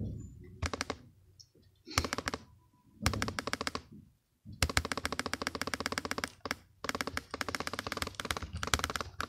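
Laptop keyboard being typed on in several bursts of rapid keystrokes with short pauses between, the longest run filling the second half.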